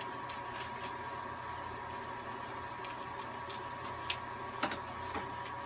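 Steady machine hum with a thin whine in it, over which come scattered light clicks and taps, one sharper click near the end.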